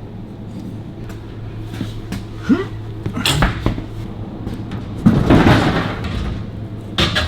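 Metal clanks, knocks and a scrape from steel spare-wheel mounting parts being handled and fitted, with a short squeak before the first knocks and the loudest, longest clatter about five seconds in, over a steady low hum.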